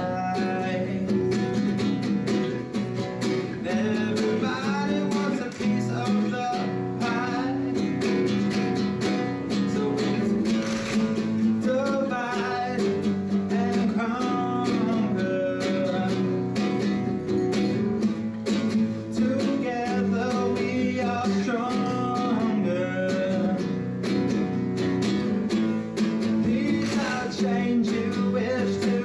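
A man singing to his own acoustic guitar, strummed in a steady rhythm.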